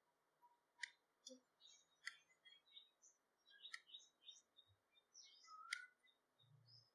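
Faint sharp clinks of a steel spoon against a stainless steel mixer jar as spice powder is tipped in, about four spread through, with faint short high chirps between them.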